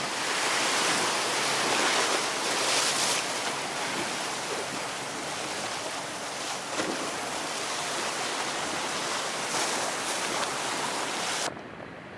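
Rough surf and breaking waves in an ocean inlet, with wind buffeting the microphone. The loud rush cuts off abruptly near the end.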